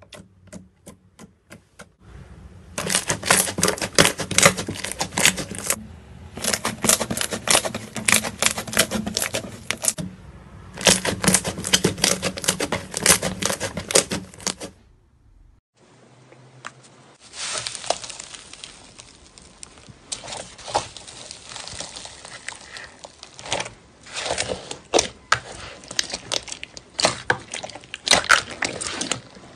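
Hands squeezing, pressing and kneading slime: quick, dense clicking and crackling, which breaks off briefly about halfway and starts again.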